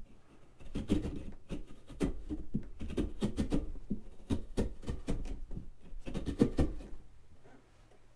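A knife cutting and scraping into a pumpkin: a quick, irregular run of short knocks and scrapes that starts about a second in and stops near the end.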